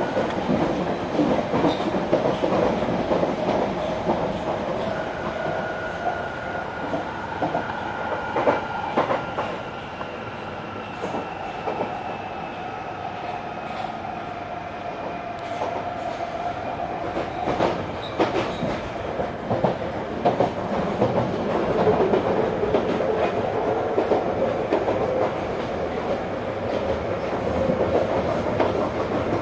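London Underground 1995 Stock train running at speed on open track. Its wheels click irregularly over the rails, under a steady running noise and faint motor whine tones that drift slowly lower in pitch.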